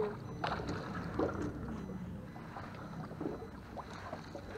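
Faint knocks and handling noises on an aluminium jon boat, over a steady low rumble of wind and water.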